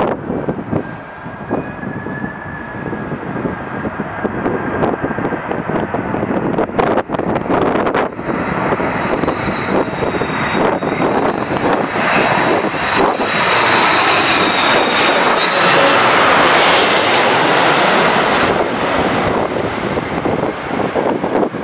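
Jet airliner on approach to land, passing close: a high, steady engine whine over the rush of the engines grows louder to a peak about three-quarters of the way through, then fades. Strong gusty wind buffets the microphone throughout.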